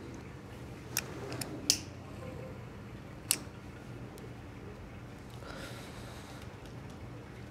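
A cigarette lighter flicked and struck, a few sharp clicks in the first half, the loudest just before the second mark. Near the end comes a soft breath as the smoke is exhaled.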